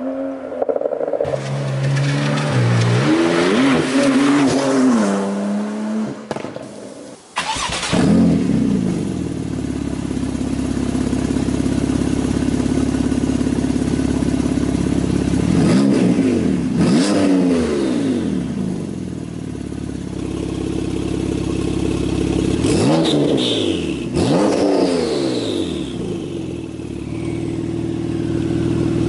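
Porsche 991 Turbo S twin-turbo flat-six through an Fi Exhaust valved catback. It first accelerates hard past on the road, its pitch rising and falling. After a sudden cut about seven seconds in, it idles at a standstill and is revved sharply several times, each rev dropping back to idle.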